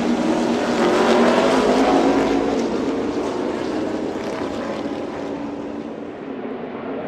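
NASCAR Xfinity Series stock cars' V8 engines running past on the track, heard at a distance, loudest a second or two in and then fading away.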